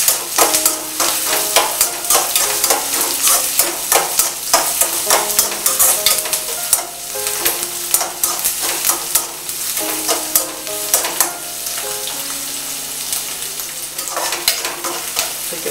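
Chopped onions sizzling in hot oil in a kadhai over a full gas flame, with a slotted metal spatula scraping and tapping the pan in many quick clicks as they are stirred.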